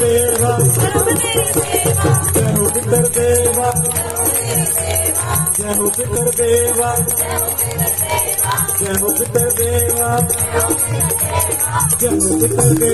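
Live devotional kirtan music: a steady drum beat with jingling, rattle-like percussion under a held tone and melody.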